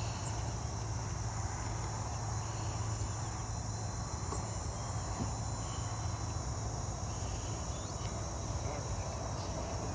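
Steady dawn chorus of insects, a continuous high chirring with no breaks, over a low steady hum.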